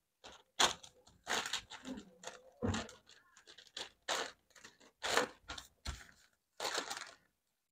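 Sheets of brown paper rustling and crinkling as they are folded in half and pressed flat by hand, in a series of short, irregular rustles.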